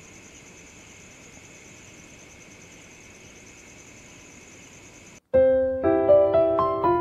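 Crickets chirping in a faint, steady, pulsing trill, cut off suddenly about five seconds in by louder piano background music.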